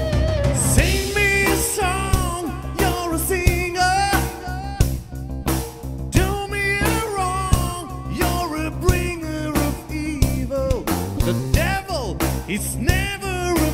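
Male singer with vibrato on his held notes over a live rock band: electric guitar, bass and a drum kit with regular cymbal strikes.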